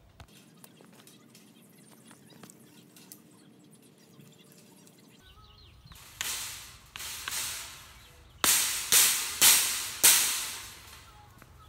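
Rubber mallet striking a plastic glide into the cast-iron foot cup of a wrought iron patio table: a few lighter taps starting about six seconds in, then four hard blows about half a second apart near the end.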